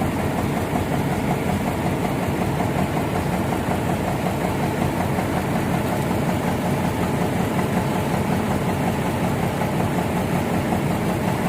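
An engine idling steadily, its sound even and unchanging throughout.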